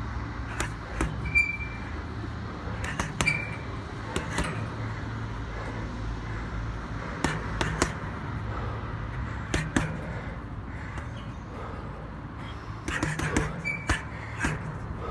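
City street ambience: a steady low rumble of traffic with scattered sharp clicks and knocks, and a few brief high squeaks.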